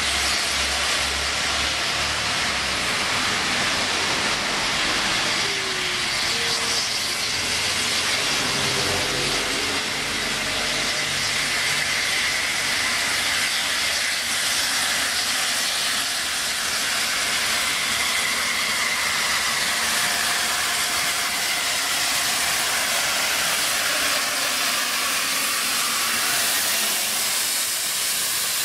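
Peppercorn A1 Pacific steam locomotive 60163 Tornado drawing slowly into the platform, with a steady, loud hiss of steam.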